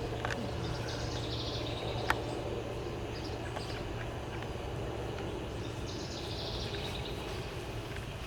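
Outdoor garden ambience: birds chirping in two short spells over a steady low hum, with a single sharp click about two seconds in.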